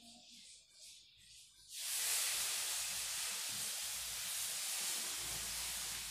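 A steady hiss that starts suddenly about two seconds in and is strongest in the high range.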